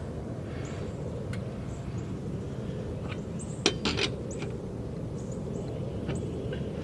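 Light metallic clinks and taps of a four-way lug wrench being tried on and fitted over wheel lug nuts: a handful of sharp clicks, with a quick cluster about four seconds in, over a steady low background rumble.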